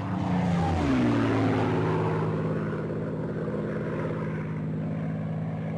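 Propeller aircraft engine running, its pitch falling over the first second or so and then holding steady.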